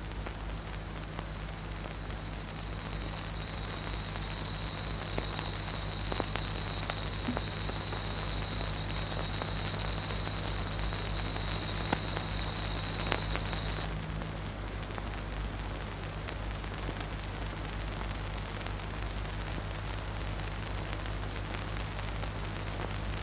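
Steady high-pitched tone of a steel plate driven into vibration by a crystal oscillator, making the sand on it form a Chladni sound figure. The tone grows louder a few seconds in, stops sharply about 14 seconds in, and half a second later a slightly higher, quieter tone takes over, changing the sand pattern. A steady low hum lies beneath.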